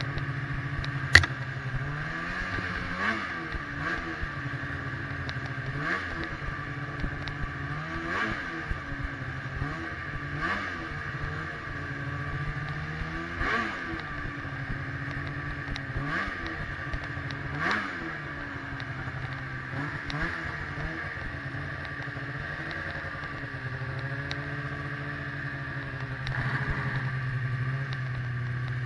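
2016 Arctic Cat XF 8000 snowmobile's 800cc two-stroke twin running under a rider's throttle. The engine note rises and falls every couple of seconds as the sled is eased along, then settles to a steadier, lower run near the end. A single sharp click about a second in is the loudest sound.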